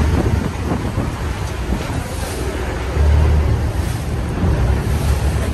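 Wind buffeting the microphone: a deep, uneven rumble that swells in gusts, strongest a few seconds in, over a steady rushing hiss.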